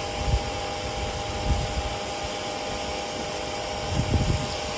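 Pressure washer running, its pump humming steadily under a hiss of water spraying through a 0-degree nozzle tip. A few low bumps break in, the loudest about four seconds in.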